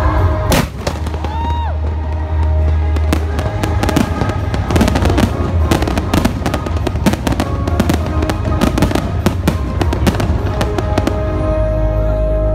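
Fireworks bursting: one loud bang about half a second in, then a rapid run of many bangs and crackles from about three seconds in until near the end, with music playing underneath.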